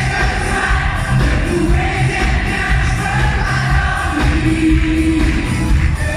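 Live band performing a French pop song through a concert PA: a steady drum beat under lead singing.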